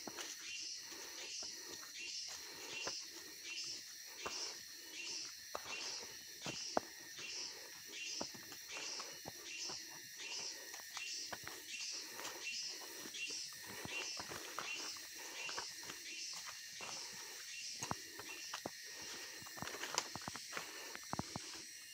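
A chorus of forest insects chirring steadily at a high pitch, pulsing about twice a second. Under it, footsteps crunch and tick on a leafy, muddy trail.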